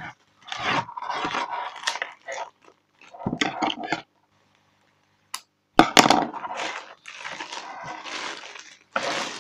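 Clear plastic bag crinkling and rustling in irregular bursts as it is pulled off a small speaker. There is a short pause midway, broken by one sharp click.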